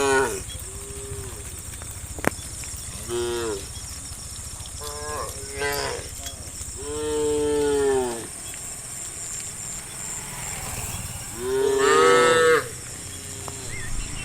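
Cattle mooing: about six separate calls from the herd, the longest and loudest about seven seconds in and near the end. A steady low hum and a high hiss run underneath.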